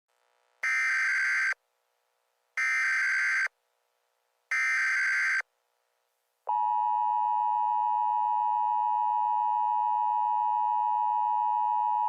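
Emergency Alert System header tones: three short bursts of warbling digital data tone, each a little under a second long and about a second apart. About six and a half seconds in, the steady two-tone EAS attention signal starts and holds. Together they mark the start of a new emergency alert.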